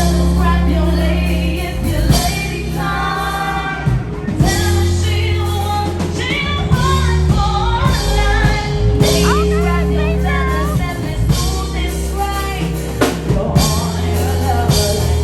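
Background music: a song with a vocalist singing over a steady bass and drum beat.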